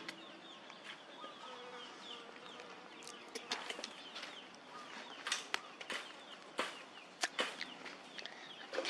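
Faint high chirps throughout, over a series of sharp clicks and crinkles from about three to eight seconds in, like a diaper and tissue being handled.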